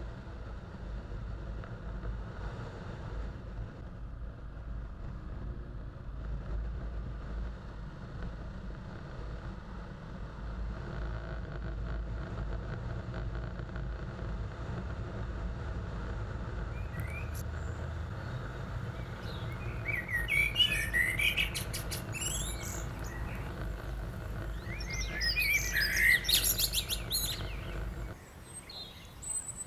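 Steady low rumble of a motorcycle on the move along a country lane, with birds singing loudly over it twice, about two-thirds of the way in and again shortly before the end. The rumble drops away near the end.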